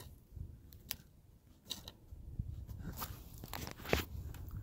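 Handling noise as a gloved hand and coat sleeve take hold of the camera: faint scattered clicks and fabric rustling against the microphone, with a slightly louder knock a little before the end.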